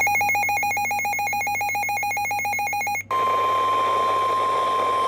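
NOAA Weather Radio alert signal: a rapid, buzzy warbling digital data burst (the SAME header) for about three seconds. After a brief break it switches to a single steady tone of about 1 kHz, the Warning Alarm Tone that announces a warning.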